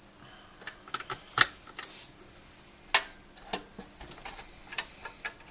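Scattered sharp plastic clicks and knocks as power and data cable connectors are handled and pushed into a desktop hard drive. The two loudest come about one and a half and three seconds in.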